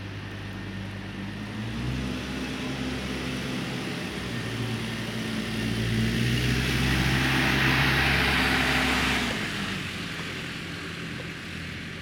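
Vehicle engine running on a snow-covered street, a steady low drone that grows louder about two seconds in. A rushing hiss of a vehicle passing on the snowy road swells to its loudest about eight seconds in and dies away about a second later.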